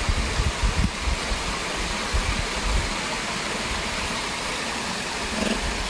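Steady rushing outdoor noise, with irregular low rumbles in the first few seconds that ease off after about three seconds.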